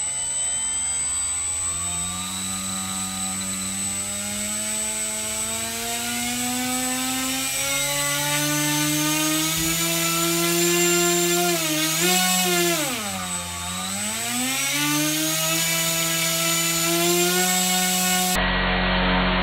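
Brushless electric motor spinning the stock 10-inch propeller of an E-Flite Opterra at static thrust, its whine rising slowly in pitch as the throttle is opened. The pitch dips briefly and climbs back to near full throttle, around 1400 g of thrust at 5.5–6 A. About a second before the end the sound cuts abruptly to a steady hum.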